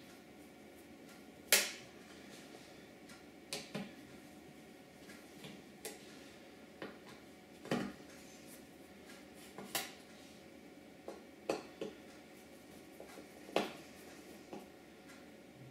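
Small sharp clicks and taps coming irregularly, about a dozen, the loudest about a second and a half in, as a small screwdriver works the screws of a laptop's bottom hatch.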